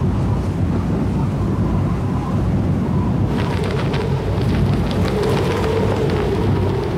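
Rushing wind of a wingsuit flyer in fast flight, a loud steady roar. From about three seconds in, the wingsuit fabric adds a rapid flapping crackle.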